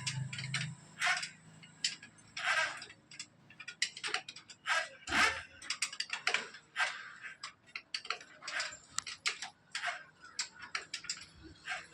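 Irregular light clicks and clinks of small hard objects being handled, several a second and uneven in spacing.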